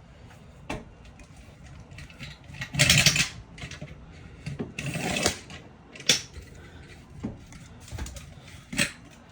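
Handling noises: a few sharp clicks and two short scraping rustles, about three and five seconds in.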